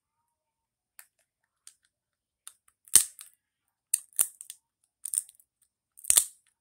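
Crab leg shell being cracked between the teeth: a run of sharp cracks and clicks, the loudest about three seconds in and again near the end.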